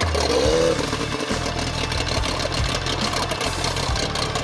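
Tohatsu 40 outboard fitted with a water-jet unit, running with a steady low engine note as the inflatable boat pulls away into the current, with a short rising-and-falling note in the first second.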